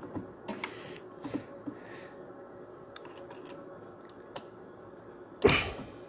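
Small clicks and taps of pliers and a metal pick against a plastic under-hood fuse box as a fuse is pried at, with a brief, louder noise near the end.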